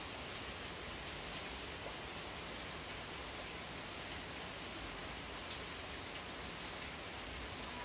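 Steady rain falling, an even hiss of drops with no let-up.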